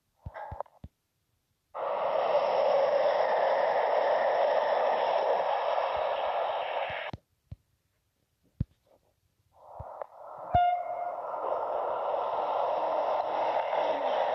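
TGV high-speed train passing at speed: a steady rushing noise with little bass. It starts abruptly about two seconds in and cuts out suddenly around seven seconds. About ten seconds in it swells back with a click.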